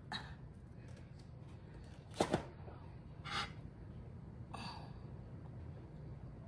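Quiet handling of a fork and food on a plate: a sharp double click about two seconds in, then a couple of short, softer noises.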